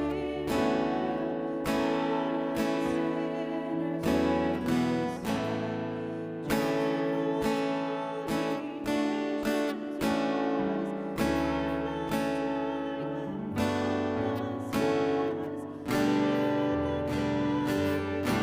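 Instrumental music: strummed acoustic guitar chords, a new chord struck every second or so.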